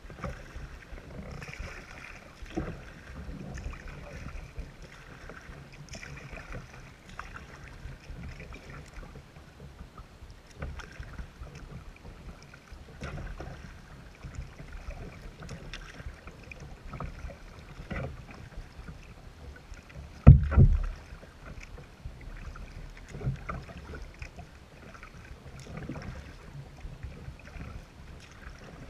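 Water splashing and lapping at a moving kayak's hull from paddle strokes, in short irregular splashes. A single loud low thump about two-thirds of the way through.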